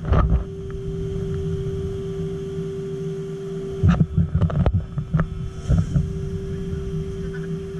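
Steady machinery hum with a low rumble and a held tone from the dark-ride machinery. Several knocks and thumps come about four to six seconds in.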